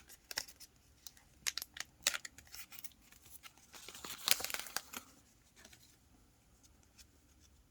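A sports-card pack being torn open by hand: crackling and tearing of the plastic wrapper in short irregular bursts, loudest about four seconds in.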